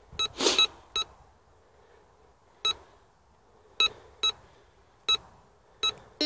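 Bounty Hunter Land Star metal detector giving about nine short beeps, irregularly spaced and some in pairs, as its coil is swept over a 5-złoty coin buried 37 cm deep: the detector is picking up the coin. A brief rustle comes about half a second in.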